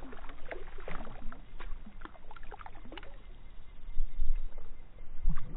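Water splashing and sloshing in many small, irregular splashes over a steady low rumble.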